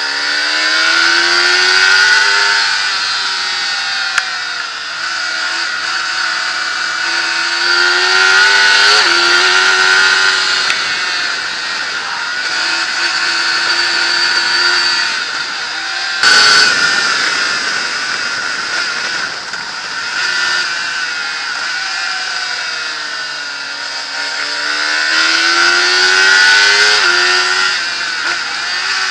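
Racing sidecar outfit's engine under hard acceleration on track, its pitch climbing steadily and dropping back again and again with the gear changes and braking, over a heavy rush of wind on the onboard microphone. A short loud burst of noise cuts in about sixteen seconds in.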